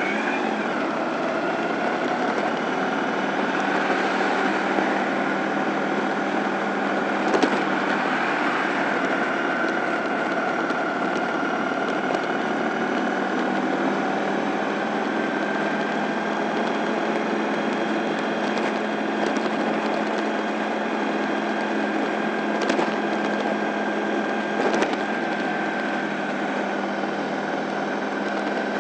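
Honda ST1100 V4 engine running steadily at low riding speed, with a steady whine over wind and road noise. A few short knocks or rattles are heard, about a third of the way in and twice near the end.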